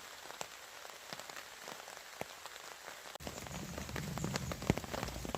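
Rain falling on a hammock tarp overhead, with separate drops striking it over a steady patter. About three seconds in the rain becomes louder and fuller.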